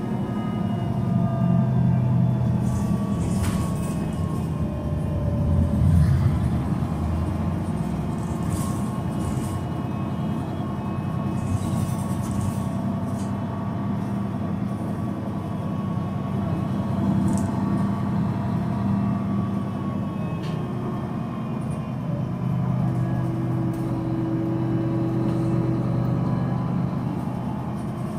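Rear-mounted DAF 9.2-litre horizontal inline-six turbo diesel of a Solaris Urbino 12 III city bus idling at a standstill, a steady low running sound with the diesel clatter this engine has at low revs. It swells slightly a few times, most about six seconds in.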